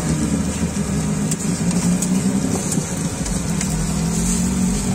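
A steady low mechanical drone, engine-like, under an even hiss of patties frying on a flat steel griddle.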